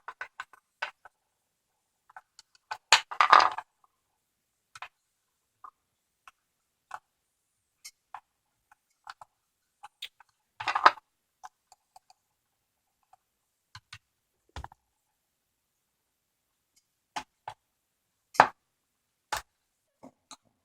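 Small metal clicks, ticks and scrapes of a screwdriver working at the retaining clip on the back of a Schlage padlock's cylinder, sparse and irregular, with a few louder knocks.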